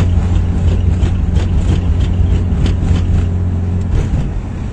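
Motor vehicle running with a steady low drone, with scattered short clicks and rattles over it.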